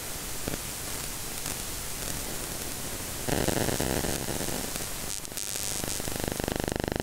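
Radio interference from an iPhone 12 Pro held against a drum machine, coming through the drum machine's audio, which the owner puts down to the phone's 5G antenna. It is a steady static hiss that turns coarser and crackly about three seconds in, then near the end becomes a fast, regular buzzing pulse, like the sounds of old modems.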